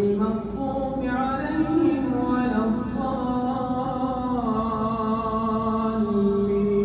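A man's voice reciting the Quran in a slow, melodic chant, drawing each phrase out into long held notes, with one long sustained note in the second half.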